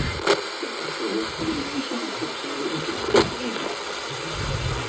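Steady radio hiss, with a sharp crackle about a third of a second in and another about three seconds in, over faint wavering tones.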